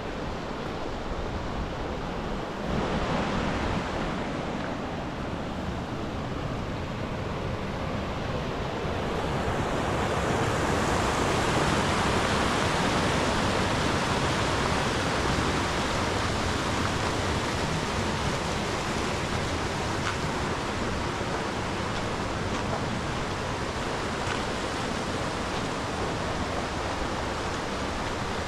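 Steady rush of flowing mountain water, a stream or small cascade, growing louder and brighter about ten seconds in.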